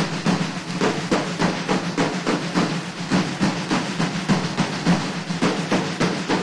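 Military drums beating a fast, steady marching cadence, snare strikes several per second over a low drum.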